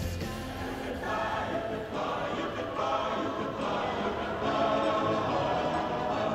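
Music with sung voices, in a lighter passage that begins as the heavy bass drops out.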